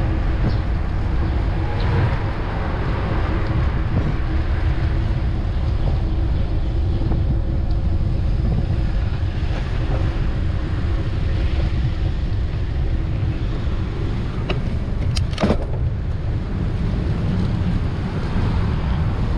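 Steady road traffic noise heard from a moving bicycle, with wind rumbling on the microphone. A single sharp knock comes about fifteen seconds in.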